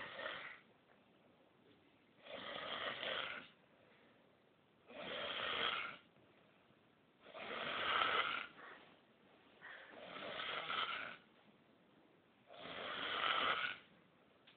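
Snoring: six rasping snores, each about a second long, coming about every two and a half seconds.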